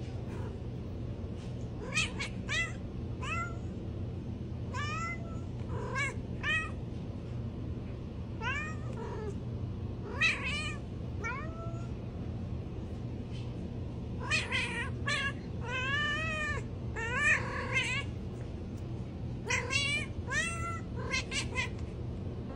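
Domestic cat meowing over and over: short, high-pitched meows, often two or three close together, with a few longer, wavering meows in the middle.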